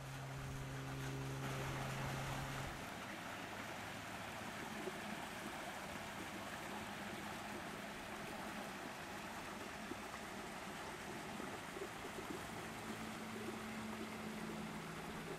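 Steady splashing and rushing of water from a small cascade spilling into a swimming pool. A low steady hum underneath stops a few seconds in.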